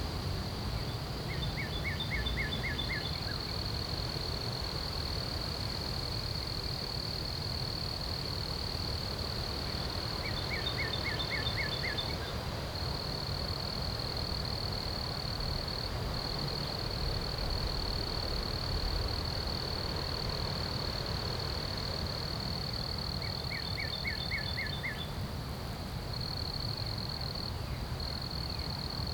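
Outdoor ambience: an insect trills steadily and high, with a few brief breaks. A songbird repeats a short phrase of about six quick notes three times, about ten seconds apart, starting a fourth near the end. A low rumble of wind on the microphone runs underneath.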